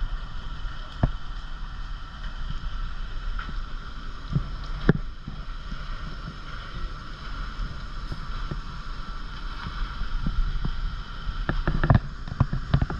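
Concrete mixer truck's engine running steadily, with scattered sharp knocks and scrapes from work, a cluster of them near the end.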